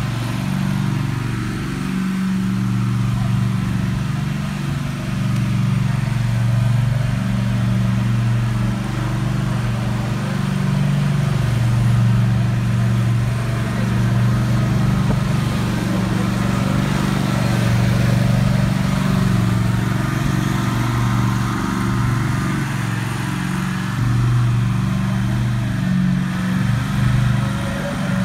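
Toro zero-turn riding mower's engine running steadily, with small rises and dips in pitch and loudness as the mower drives and turns.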